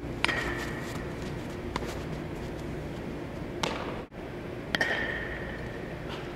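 Aluminum baseball bat hitting a ball twice, about four and a half seconds apart: each hit is a sharp crack with a ringing metallic ping that fades quickly. Under it runs the steady hum of a large indoor hall.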